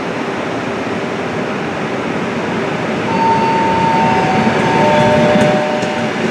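Suburban electric multiple-unit train pulling into a station platform, with a steady rumble of wheels and motors that grows louder as it comes by. About three seconds in, a few steady whining tones set in one after another, each lower than the last, and they fade out near the end.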